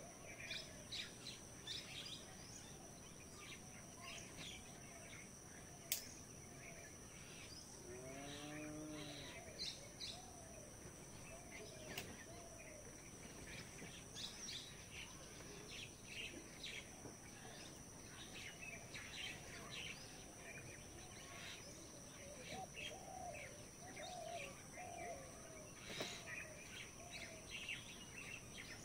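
Faint village morning ambience after rain: many birds chirping and calling, over a steady high-pitched insect whine. About eight seconds in, one low, drawn-out call rises and falls in pitch, and there are a couple of sharp single clicks.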